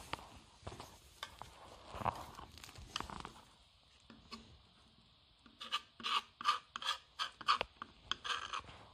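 Fillet knife scraping and slicing along a trout's rib bones and against the cutting board, a scattered scratchy rasping that becomes a quick run of short strokes, about three a second, a little past halfway through.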